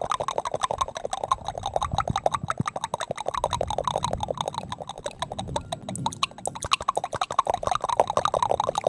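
Layered ASMR mouth sounds: a fast, unbroken run of wet tongue clicks and lip pops, many a second.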